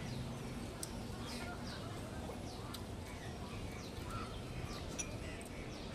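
Birds chirping in the background: short falling chirps, several each second, over a steady low background noise, with a few sharp clicks.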